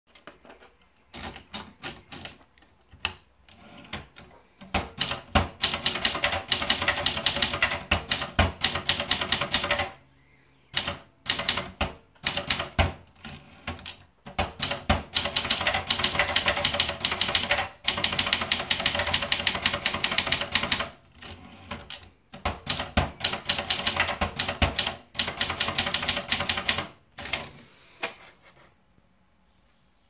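Vendex 500 TR portable manual typewriter being typed on: fast runs of key and typebar strikes lasting several seconds each, with short pauses between them. It begins with a few scattered, quieter clicks.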